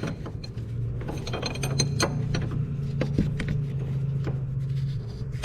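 Ratchet wrench clicking in irregular runs while tightening a hose fitting on a hydraulic brake booster, with some clinks of metal tools, over a steady low hum.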